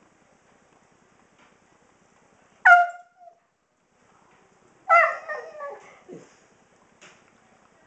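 Elderly Siberian husky vocalizing: a short, sharp call about two and a half seconds in, then a longer call around five seconds in that falls in pitch and drops low at its end.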